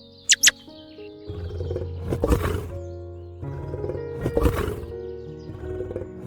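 Background music with two short, high chirps just after the start, then a large animal's rough roaring calls, swelling and easing about every two seconds.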